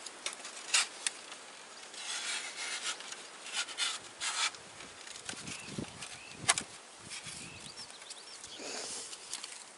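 Wooden pieces scraping and rubbing together in irregular bursts, with one sharp knock about six and a half seconds in.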